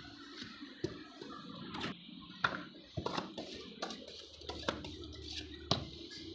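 Irregular light clicks and knocks with soft scraping, as a hand scraper works set gypsum plaster off the edges of cast ceiling tiles.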